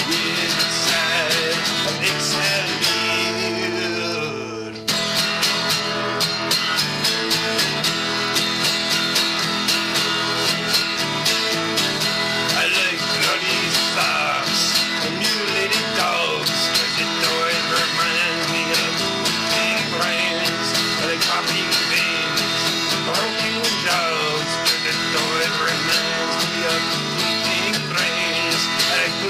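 Epiphone acoustic guitar strummed in a fast, steady rhythm, with a man singing over it. The strumming eases off briefly about four seconds in, then comes back in at full strength.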